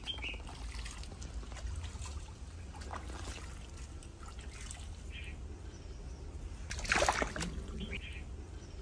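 Live fish thrashing in a plastic basin of water, splashing and sloshing on and off, with one louder splash about seven seconds in.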